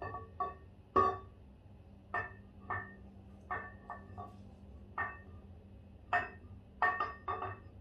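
Cummins 6BT camshaft knocking against the cam bores of the block as it is worked out by hand. About a dozen sharp metallic clinks, irregularly spaced, each with a short ring.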